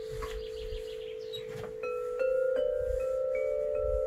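Crystal glass tube instruments ringing: a low note sustains under a light, fluttering tinkle, then from about two seconds in notes are struck one after another, roughly two a second, and keep ringing into a layered chord.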